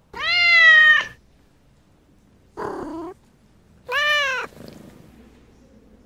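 Domestic cat meowing three times: a long call of about a second, a shorter, lower and rougher one, then a third call that drops in pitch at its end.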